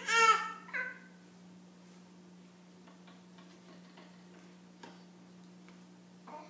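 Baby giving a loud, high squeal at the start that rises and falls, then a shorter squeak just after; the rest is quiet apart from a few faint small clicks.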